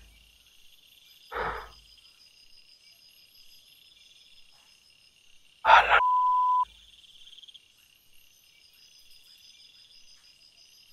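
Night insects chirping steadily and faintly in a high, pulsing chorus. About a second and a half in there is a brief soft noise. Near the middle comes a short loud noise, followed by a sharp, steady beep of about half a second.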